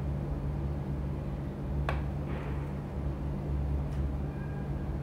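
Steady low background hum, with a single sharp click about two seconds in.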